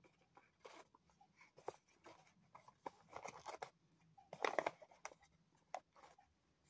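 Plastic spoon scraping and stirring inside a ration food pouch, with the pouch crinkling: faint, scattered scrapes and rustles, the loudest about four and a half seconds in.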